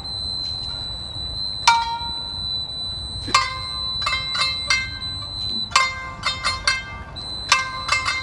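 Traditional Japanese music on a plucked string instrument: single ringing notes, then quicker runs of notes, over a steady high-pitched tone.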